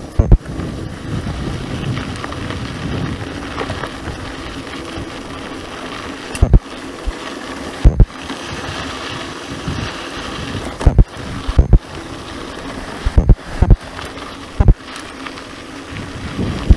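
Mountain bike riding on a dirt track: a steady rumble of tyres and mechanical rattling from the bike, broken by repeated sharp knocks as it jolts over bumps.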